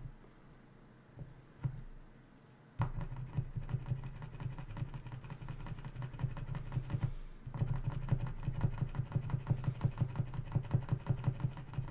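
Posca paint marker's nib being pumped down against paper over and over to prime it, a quick, even run of clicking taps. It starts a few seconds in after a couple of single taps and pauses briefly midway.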